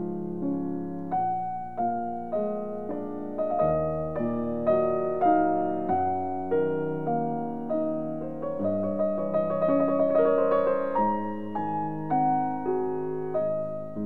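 Background music: piano playing notes and chords, each struck and fading, roughly two a second, with a quicker run of notes about two-thirds of the way in.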